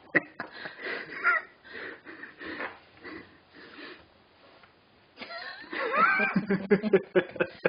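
A person laughing breathily and wheezily in short bursts, with a louder, more voiced fit of laughter in the second half.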